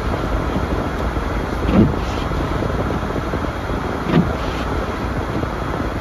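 Steady road and tyre noise heard from inside a car on a snow-covered road, with the windshield wipers giving a short low thump about every two and a half seconds, twice here.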